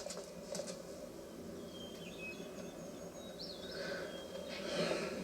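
LuguLake Blade Slim wireless speaker playing a quiet outdoor ambience, a low steady hum with a few short, high bird-like chirps scattered through it.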